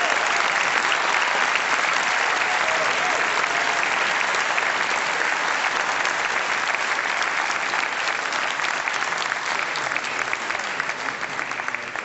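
Large auditorium audience applauding loudly; the clapping thins out near the end, individual claps becoming distinct as it fades.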